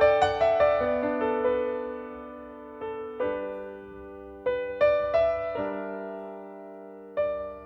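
Slow piano music: a few notes at the start, then sustained chords struck about three seconds in, about four and a half seconds in and again near the end, each dying away.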